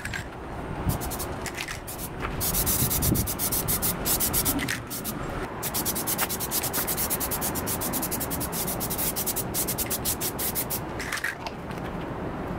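Plasti Dip aerosol spray can hissing as the first coat goes onto a chrome grill, in stretches of rapid short pulses with brief breaks between them, stopping about a second before the end.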